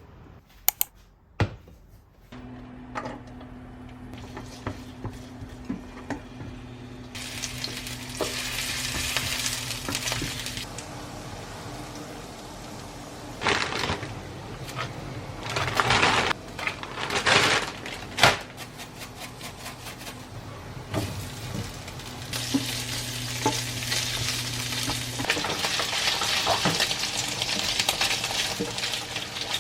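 Food sizzling in a frying pan while it is stirred, with a few sharp knocks of a utensil against the pan around the middle. A low steady hum runs under it for stretches.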